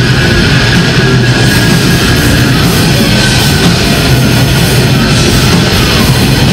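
Grindcore band playing live: distorted electric guitars and drum kit, loud and dense without a break.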